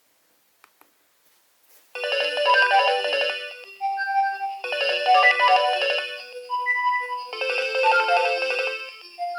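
Nokia 2300 mobile phone playing a polyphonic ringtone. It starts about two seconds in, after a couple of faint clicks, with a short phrase of chords and melody that repeats about every three seconds.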